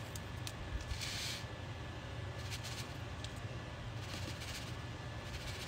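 Sodium hydroxide (lye) flakes poured from a bottle onto frozen goat's milk, in three short hissing pours with a few light clicks, over a steady low hum.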